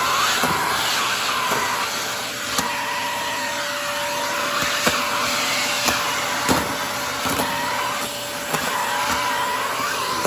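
Canister vacuum cleaner running with its power head removed, a steady rush of suction airflow through the hose. Its motor whine dips and rises in pitch several times, and a few light knocks sound over it.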